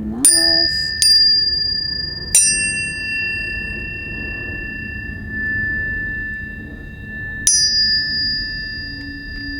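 Planetary tuning forks struck four times, about a third of a second, one second, two and a half seconds and seven and a half seconds in. Each strike is a sharp click that leaves several clear high tones ringing on together, fading slowly.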